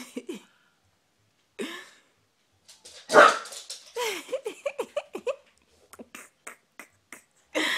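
An American Bully barking: one loud bark about three seconds in, then a quick run of five or so short barks, each falling in pitch, followed by a few sharp ticks.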